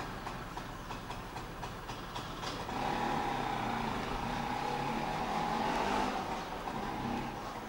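A motor vehicle's engine passing close by in a narrow street, swelling from about three seconds in and fading again near the end.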